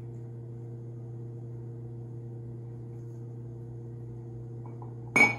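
A steady low electrical-sounding hum, with one short, loud, sharp sound about five seconds in.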